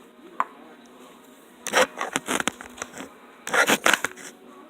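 Slime made from Flarp noise putty and toothpaste being squeezed and worked by hand: two bursts of squishy crackling, about two seconds in and again near the end.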